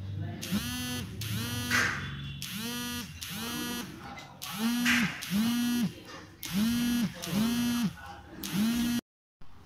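Home power inverter's buzzer beeping in pairs: two short, buzzy beeps about every two seconds. This warning beep is what such an inverter gives while running on battery during a mains power cut. The beeping cuts off abruptly near the end.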